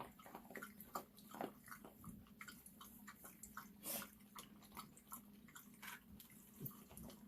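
Small dogs eating and drinking from their bowls: faint, irregular clicks of chewing and lapping, with a slightly louder click about four seconds in, over a faint steady hum.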